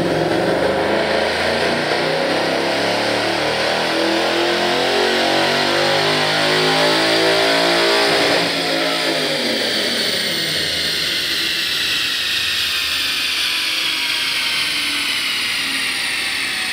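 2013 Ford Mustang GT's 5.0-litre V8 making a wide-open-throttle pull on a chassis dyno: the engine note rises steadily in pitch for about eight seconds, then the throttle closes and the engine, wheels and roller wind down, falling in pitch with a high whine.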